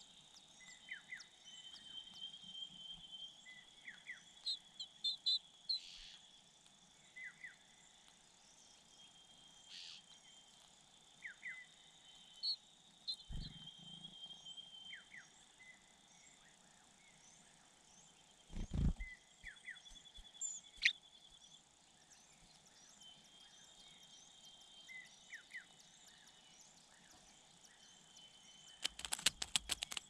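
Small birds chirping in short calls every second or two over a steady high insect drone, with two dull low thumps around the middle. Near the end comes a quick run of sharp rustling clicks as an adult bird arrives at the ground nest.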